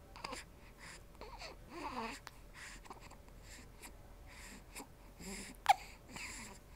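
Someone with the hiccups breathing quietly, with one sharp, loud hiccup near the end.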